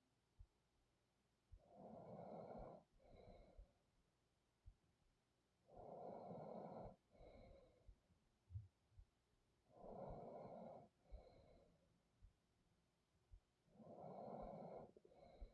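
Faint, slow breathing of a person asleep: four breaths, each a longer breath sound followed closely by a shorter one, about every four seconds. There are a few faint ticks in between.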